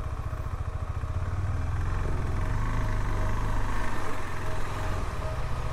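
Motorcycle engine idling with a steady low chug.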